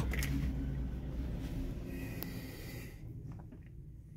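Volkswagen T5 diesel van failing to start on a cold morning: a sharp click as cranking stops, then a low hum that dies away over about three seconds, leaving a quiet cabin. The uploader puts the failure down to air in the fuel system.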